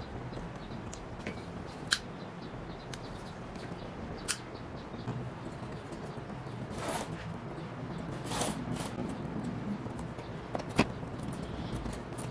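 Handling noises as parts of a homemade egg-turning tray are fitted together: a few sharp clicks and knocks, the loudest near the end, and two short scrapes around the middle, over a low steady hum.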